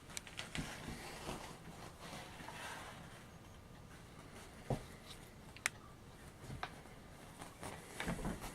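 Faint, scattered footsteps and small handling knocks and clicks over quiet room tone. There is a sharp click about halfway through and a run of low thumps near the end.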